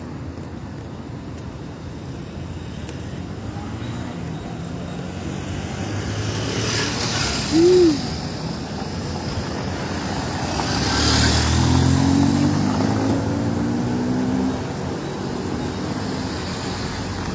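Street traffic: cars passing close by, with two swells of tyre and engine noise. A short, loud tone sounds just before the eight-second mark, and an engine hum is heard from about ten to fourteen seconds in.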